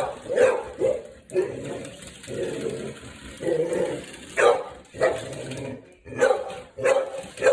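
A dog barking repeatedly in short, sharp barks at an irregular pace, with a few longer drawn-out sounds between them.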